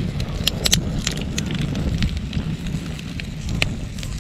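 Wood campfire burning on bare ground, crackling with irregular sharp pops over a steady low rumble.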